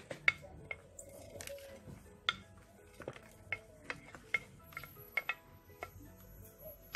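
Utensils clinking and knocking against dishes while chopped seasonings are added to the meat: about a dozen irregular, sharp clinks, the loudest near the start. Faint background music runs underneath.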